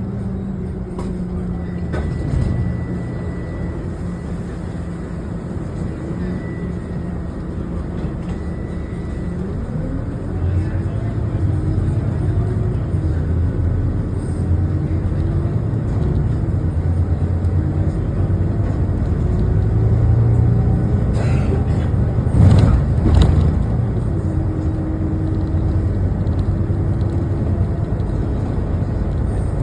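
A city bus in motion, heard from inside the cabin: a steady low rumble, with the drive's tone slowly rising and falling in pitch as the bus speeds up and slows. A few knocks or rattles come about two-thirds of the way through.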